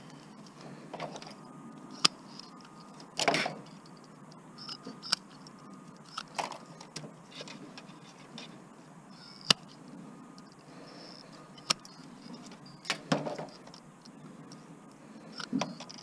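Hands and a screwdriver working apart the wiring and circuit boards of an old big-screen TV chassis: scattered sharp clicks and short rattles and scrapes of plastic connectors, wires and metal parts.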